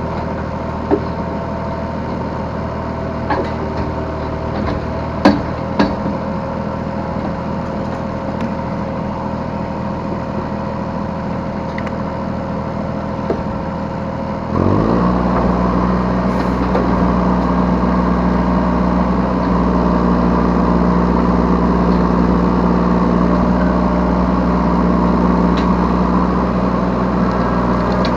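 Yanmar B3 Sigma mini excavator's diesel engine running steadily at low speed, with a few sharp knocks in the first several seconds. About halfway through the engine revs up quickly and runs on louder at the higher speed.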